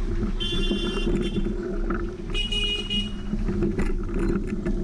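Steady vehicle noise with two short horn toots, the first about half a second in and the second about two and a half seconds in.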